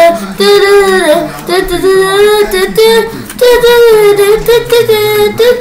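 A child singing solo in long held notes that slide and waver in pitch, phrases broken by short breaths.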